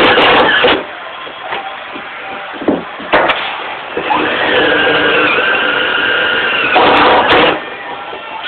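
Power drill driving screws to secure a slide-out mounting bracket. There is a short run right at the start and a few clicks, then about four seconds in the motor spins up and runs steadily for about three seconds, ending in a louder burst around seven seconds in.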